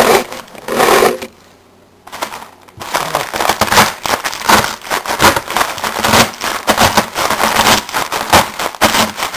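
A block of dry instant ramen noodles being crushed by hand inside its plastic packet: dense crackling and crunching with crinkling wrapper, pausing briefly about a second and a half in before carrying on.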